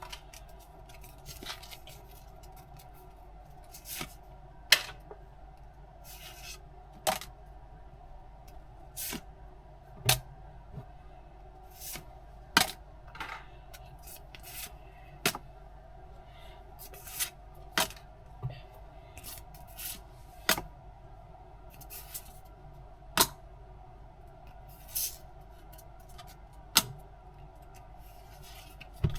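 Hands handling the contents of a Pokémon tin: short, sharp clicks and light rubbing, one every second or two at uneven spacing, over a faint steady hum.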